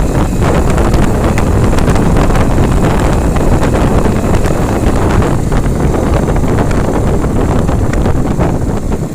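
Wind buffeting the microphone: a loud, steady rumble with crackling.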